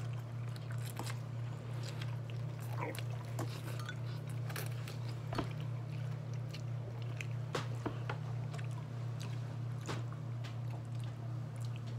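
People slurping and chewing ramen noodles, with short, sharp clicks scattered through, over a steady low hum.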